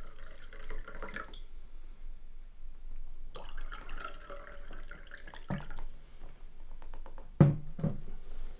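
Water poured from a glass jug into two glass tumblers, one after the other, splashing into each glass. Then a few low knocks of glass being set down on a wooden table, the loudest near the end.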